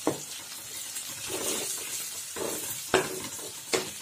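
Onions, spices and ginger-garlic paste sizzling in hot oil in a kadai as a spatula stirs and scrapes them round the pan, with a few sharp knocks of the spatula against the pan.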